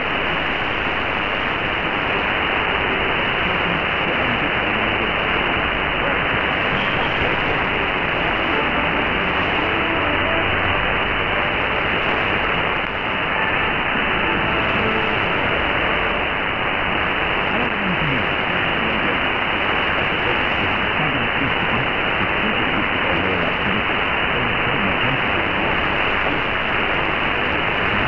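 Shortwave reception on 6160 kHz through an Airspy HF+ software-defined receiver in synchronous AM mode: a steady rush of static and hiss from a weak signal, with a faint voice barely showing through. The sound is muffled, with nothing above about 3 kHz, where the receiver's filter cuts it off.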